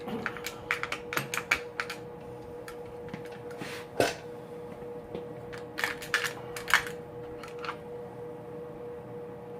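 Clicks and taps of a distributor being worked into place on the engine: a quick cluster at first, one sharper knock about four seconds in and a few more clicks around six to seven seconds, then a steady faint hum.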